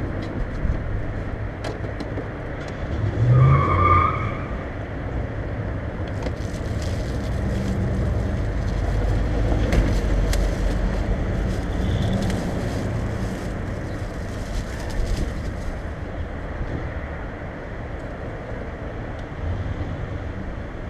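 2016 Mazda 3 GT's engine running through an aftermarket dual Spintech Super Pro Street 9000 muffler exhaust, a steady low rumble that swells louder in the middle, with wind buffeting the microphone.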